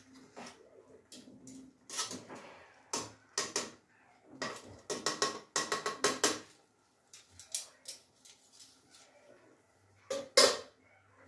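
Metal tongs clinking and scraping against a non-stick pot as spaghetti is tossed, a quick run of sharp clatters. Near the end there is a louder clank as the tongs are set down on a second pot.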